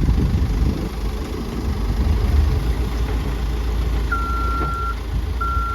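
A vehicle's engine running with a steady low rumble, its reversing alarm starting about four seconds in with long, evenly spaced single-pitch beeps.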